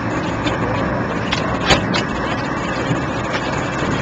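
Steady running noise of the Contender 27 Open's outboard engines at idle offshore, with a single sharp click about one and three-quarter seconds in.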